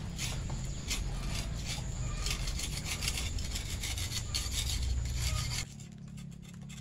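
Hand tool scraping and rasping the rough surface of a cast cement pillar in quick repeated strokes, about two or three a second, to tidy it before it is polished with neat cement. The scraping stops abruptly near the end.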